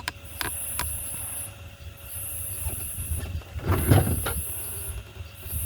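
Insects buzzing in a regular series of high-pitched bursts, each about a second long with short breaks, over a steady low rumble; a loud thump about four seconds in.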